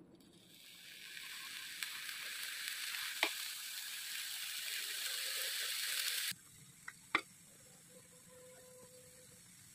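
Steady high hiss from the pot of beef biryani, building slightly and cutting off suddenly about six seconds in. A couple of sharp clicks of a metal spoon against the pot follow.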